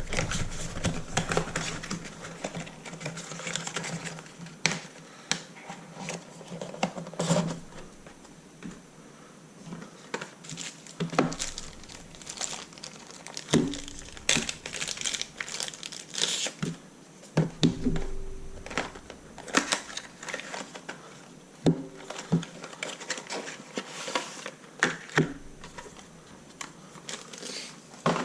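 Packaging crinkling and rustling as it is handled, with scattered clicks and knocks.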